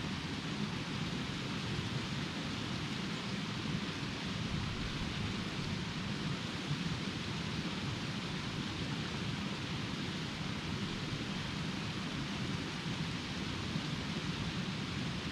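Small mountain creek rushing steadily over rocks, a constant even wash of water with a low rumble beneath it.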